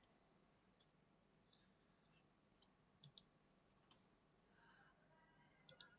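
A handful of faint computer mouse clicks over near silence, including two quick pairs about three seconds in and near the end.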